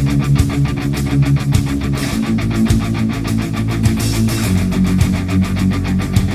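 Background music: guitar-driven heavy rock with a steady beat.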